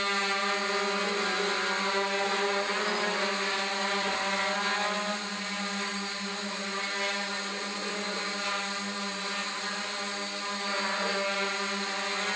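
DJI F550 hexacopter hovering, its six motors and 8x4.5 propellers giving a steady, even hum with a thin high whine above it.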